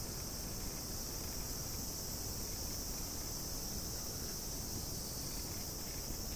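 A steady, high-pitched drone of an insect chorus, unbroken throughout, over a low background rumble.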